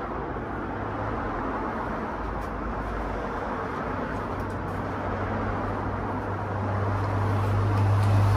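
A motor running steadily with a low hum, growing louder toward the end.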